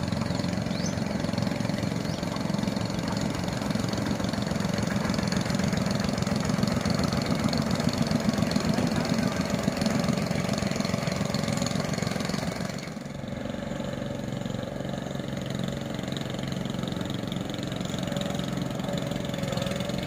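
Boat engine running steadily. About thirteen seconds in, the sound drops abruptly and turns into a quieter, steadier low hum.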